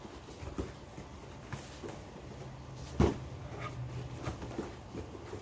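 Cardboard box being opened and its contents handled: scattered light taps and rustles, with one louder knock about three seconds in.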